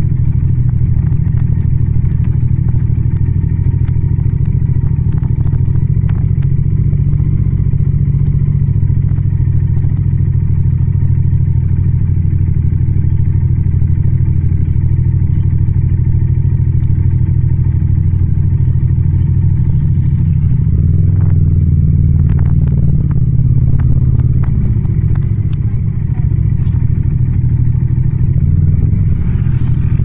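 Yamaha MT-07's 689 cc parallel-twin engine running steadily under way, recorded on the bike with no wind noise. The engine note shifts and wavers about two-thirds of the way in.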